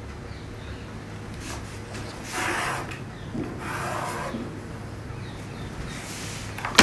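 Tailor's chalk rubbed along a ruler across fabric in two scratchy strokes, darkening a marked line. A single sharp knock near the end.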